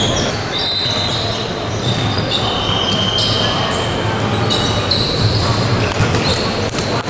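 Basketball play on a hardwood court: the ball bouncing and sneakers squeaking on the floor several times in short, high squeals.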